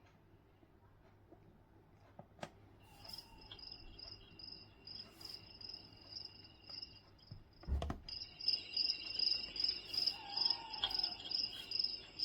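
Sunrise alarm clock's built-in sound machine playing a cricket nature-sounds track through its small speaker: rhythmic high chirping. It starts about three seconds in after a click and is louder after a knock near the middle.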